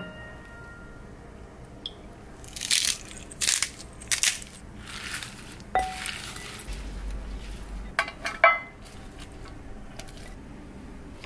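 Tongs tossing a salad of citrus segments and herbs in a glass bowl: several short bursts of wet rustling and scraping, then a couple of clinks of the tongs against the glass about three-quarters of the way through.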